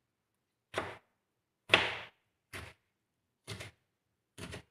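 Kitchen knife slicing through a tomato onto a plastic cutting board: five separate cuts about a second apart, each a short knock of the blade on the board, the second one the loudest.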